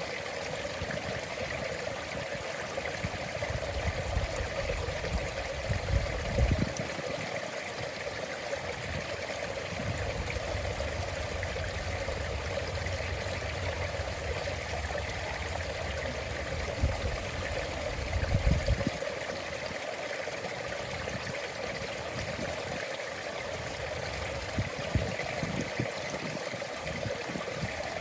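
Stream water running steadily over stones with a constant rushing trickle. Low rumbles swell and fade at times, most strongly about six seconds in and again around eighteen seconds.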